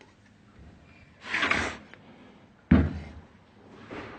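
Metal pump parts and tools handled during a pump teardown: a short scraping slide about a second in, then a sharp, loud knock of metal set down hard, and a lighter knock near the end.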